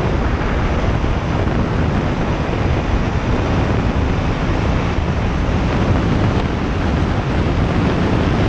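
Steady wind rush buffeting a helmet-mounted microphone on a motorcycle riding at speed, loudest at the low end and covering the bike's engine.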